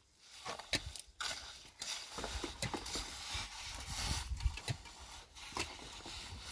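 Scattered light knocks and scraping, a few separate clicks over a low rumble that comes in about two seconds in.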